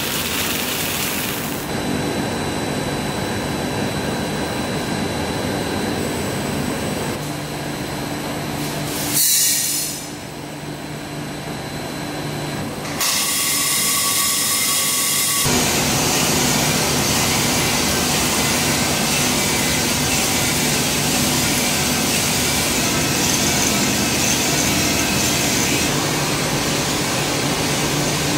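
Drum coffee roaster running, a steady mechanical whir of its motor and fan. A brief louder burst about nine seconds in, and the sound grows fuller from about fifteen seconds on.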